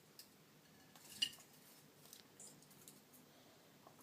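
Faint handling sounds of a chocolate surprise egg and its wrapper: light crinkles and small clicks, with one sharper click about a second in.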